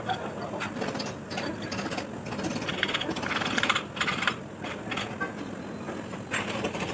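Hand ratchet wrench clicking in quick runs as bolts are turned on a Volvo engine block, with the densest run about three to four seconds in.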